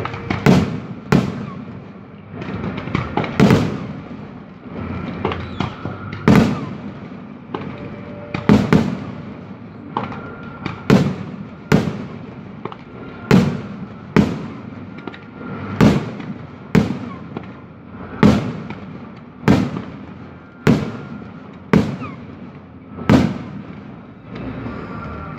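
Fireworks display: aerial shells bursting in a long run of loud bangs, each fading away, irregular at first and then coming about once a second.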